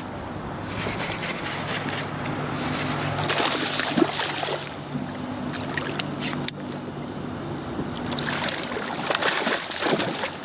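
Water splashing as a hooked bass thrashes at the surface beside a kayak, in bursts, the loudest near the end. Two sharp clicks come about six seconds in.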